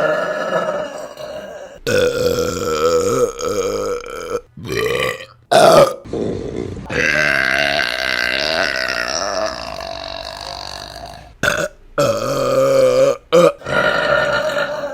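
A string of loud, drawn-out burps by women, one after another with abrupt breaks between them. The longest, in the middle, lasts about four seconds.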